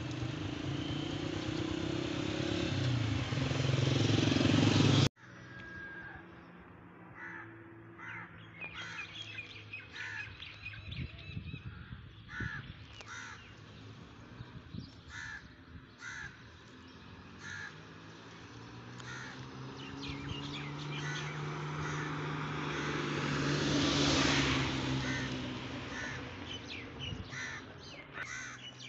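Crows cawing over and over, in short calls at irregular intervals. For the first five seconds a louder engine and road noise builds up and cuts off suddenly. Later a vehicle swells past, loudest about three-quarters of the way through.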